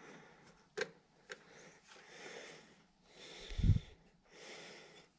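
Breathing close to the microphone, soft in-and-out breaths about once a second, with a couple of light clicks in the first second and a half as the mini lathe's gear train is handled. One breath about three and a half seconds in blows on the microphone with a low rumble.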